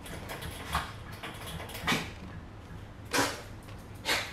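A utensil folding whipped cream into mascarpone batter in a mixing bowl: four short scraping swishes about a second apart.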